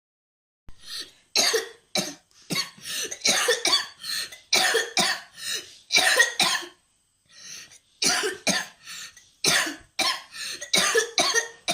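A person coughing in a long fit of short coughs, about twenty in quick runs, with a short break a little past the middle before the coughing resumes.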